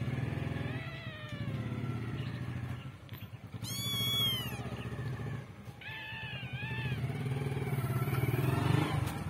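A kitten meowing several times. The loudest is a high meow about four seconds in, rising and then falling in pitch. A steady low rumble runs underneath.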